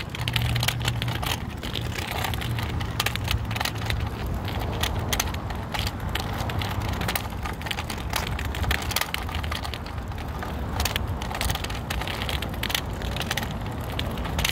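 Kick scooter rolling over pavement: a steady low rumble from the wheels with rapid, irregular clicks and rattles.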